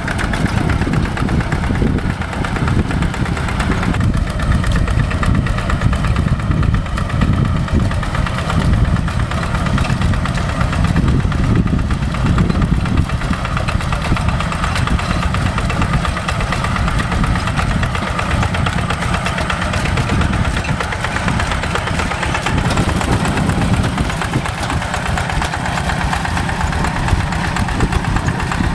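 Paddy-field tractor's diesel engine running steadily, with no clear rise or fall in pitch.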